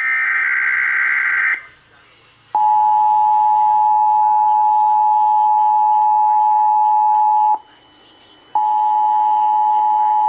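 Emergency Alert System tones from a broadcast test: a harsh SAME header data burst that ends about a second and a half in, then the steady two-note EAS attention signal, which sounds for about five seconds, breaks off for a second and comes back for about two seconds.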